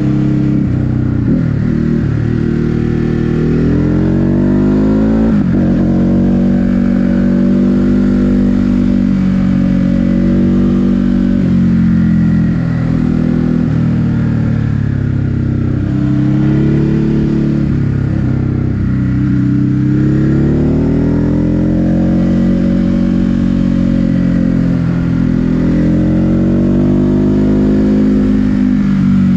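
Ducati Hypermotard 950 SP's 937 cc L-twin engine being ridden hard. The revs climb and fall again and again, with sudden drops at gear changes every few seconds.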